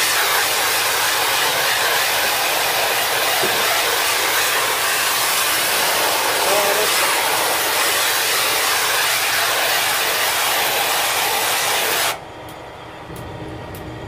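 A high-pressure jet pump's water jet blasts against the evaporator coil fins of a split-type air conditioner indoor unit. It makes a loud, steady hiss while washing off caked-on dust. The spray cuts off suddenly about twelve seconds in, leaving a lower hum.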